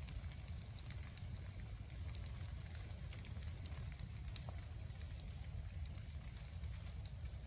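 Low ground fire burning through leaf litter and downed slash, with scattered sharp crackles over a steady low rumble.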